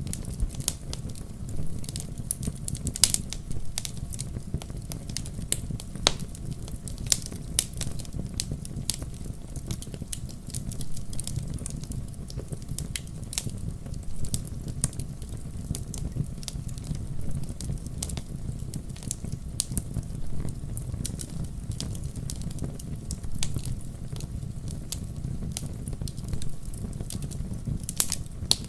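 Wood campfire crackling: frequent sharp irregular pops and snaps over a steady low rumble of the burning fire.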